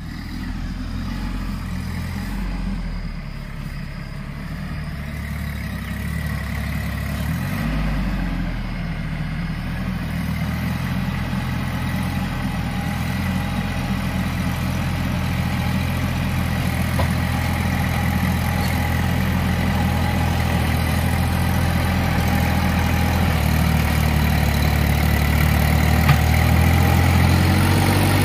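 Massey Ferguson 6028 compact diesel tractor engine running steadily as the tractor drives toward the listener, growing gradually louder as it nears.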